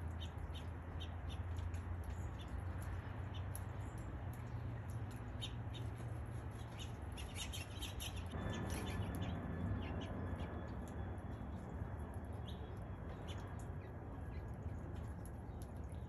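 Short, high chirps of small birds over a steady hiss of falling rain; the rain noise grows louder about halfway through.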